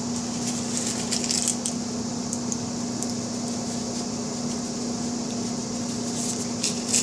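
Steady room hum with an even hiss, as from a running fan or appliance. A few light clicks or taps come through now and then, about a second in, again after two seconds, and near the end.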